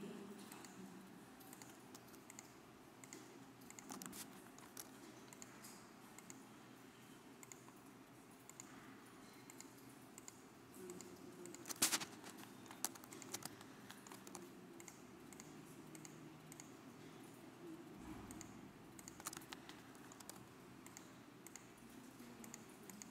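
Faint, scattered clicks of a computer mouse and keyboard keys, with a short cluster of louder clicks about halfway through.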